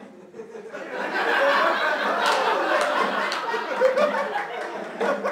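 Audience laughing, swelling about a second in and holding.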